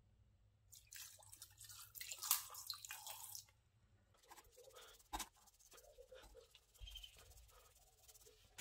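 Water splashing and dripping for a few seconds, then one sharp click and small scattered handling sounds.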